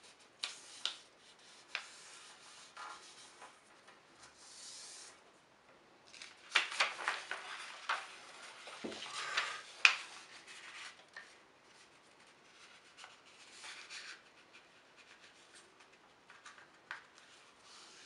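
A sheet of paper being folded and creased by hand on a tabletop: rustling and sharp crackles as the fingers press and slide along the folds. It is busiest and loudest in the middle.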